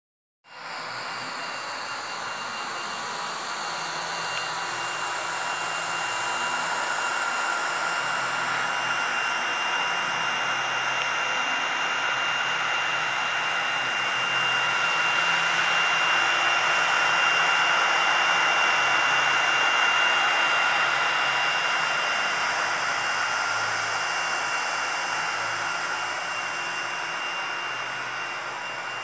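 Automatic hot-air floor welding machine running as it welds a floor seam: a steady blower hiss with a thin high whine. It grows louder toward the middle and eases off near the end.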